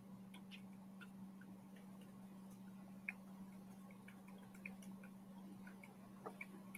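Near silence: quiet room tone with a faint steady hum and scattered faint small clicks.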